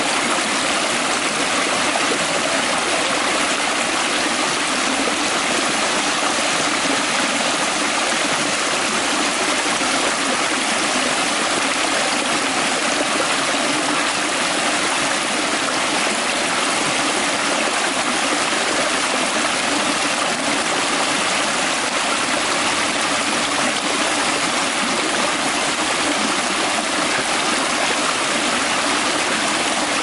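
A shallow rocky creek running over stones and small cascades: a steady, even rush of water.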